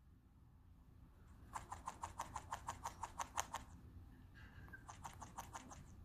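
An Indian ringneck parrot making a soft, rapid clicking series, about eight clicks a second for two seconds, then a fainter scattering of clicks near the end.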